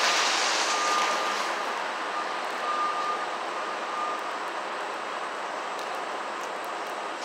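Street traffic rushing past, loudest at first and fading, with a thin whine sounding on and off during the first few seconds.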